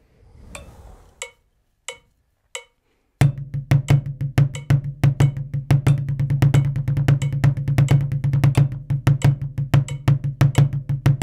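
Drumsticks playing a rudiment exercise on a drum practice pad at 90 bpm. After three count-in clicks, dense strokes with regular accents start about three seconds in: accented alternating sixteenth notes, then triplets with six-stroke-roll doubles between the accents.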